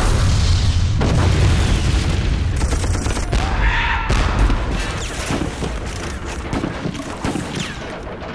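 Sound effects of war: a deep rumbling boom that lasts about half the time, then a crackle of scattered gunfire shots that slowly fades.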